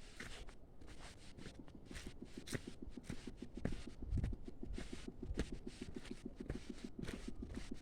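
Footsteps and rustling on a jungle trail, with scattered short scrapes and clicks. From about two seconds in, a fast, even low pulsing joins in, about eight beats a second.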